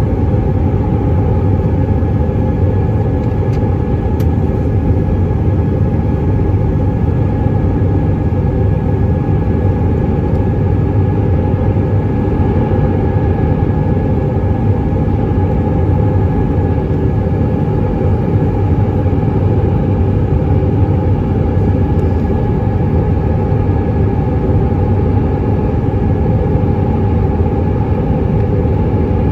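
Cabin noise of an Airbus A319-132 climbing out after takeoff, heard from a window seat over the wing. Its IAE V2500 turbofan engines run steadily as a loud, deep rumble with a steady hum and a fainter higher tone on top.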